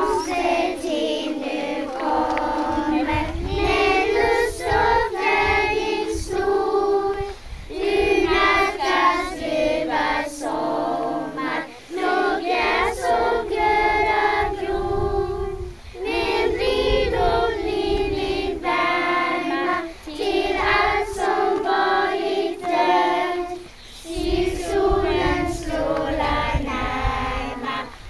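A children's choir singing a song together, phrase by phrase, with short breaths between the phrases.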